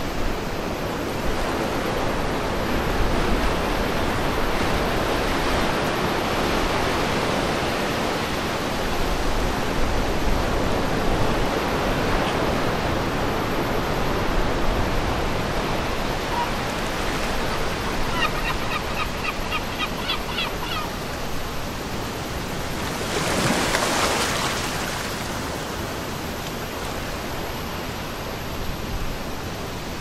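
Wind and lapping seawater at a harbour breakwater: a steady rushing noise with a low rumble of wind, swelling once about three-quarters of the way through. A quick run of high chirps comes about two-thirds through.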